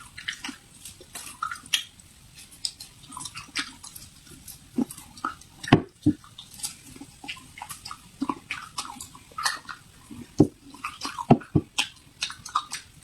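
Close-up eating sounds: irregular crunches and wet mouth clicks of someone chewing food, a few louder crunches standing out.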